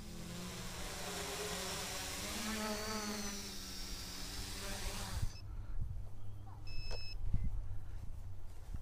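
Talon tricopter's electric motors and 9050 propellers buzzing with a wavering pitch as it comes in and lands, cutting off suddenly about five seconds in. Then wind rumble on the microphone and a short electronic beep near the end.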